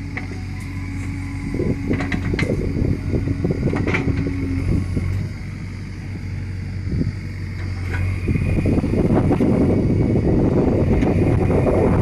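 JCB backhoe loader's diesel engine running steadily, with several sharp knocks and clanks in the first few seconds. From about eight seconds in the engine grows louder as the machine drives along the dirt road.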